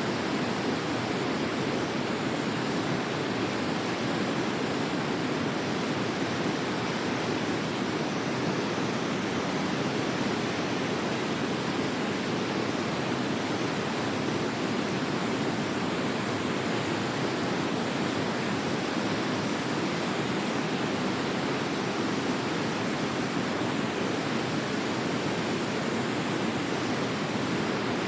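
Waterfall: a steady, unbroken rush of falling water, heaviest in its lower tones.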